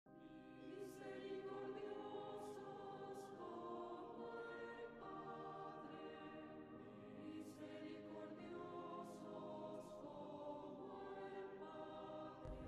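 Quiet choral music: voices singing slow, sustained chords whose notes change every second or two. A low rumble comes in at the very end.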